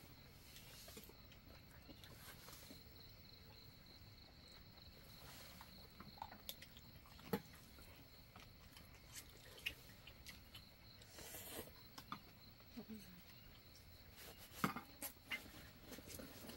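Quiet mealtime sounds: occasional sharp clicks of wooden chopsticks and utensils against enamel bowls and a metal pot, the loudest near the end, over a faint steady chirring of crickets.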